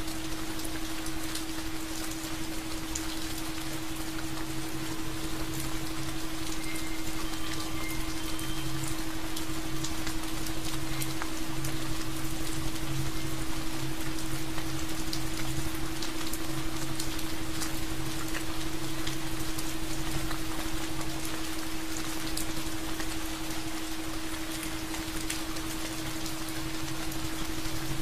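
Steady rain falling, a dense patter of drops hitting a surface, over a steady low hum.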